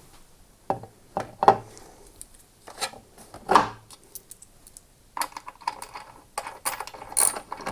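Hard plastic and metal mower parts being handled during reassembly: scattered clicks and knocks, then a denser run of clattering from about five seconds in.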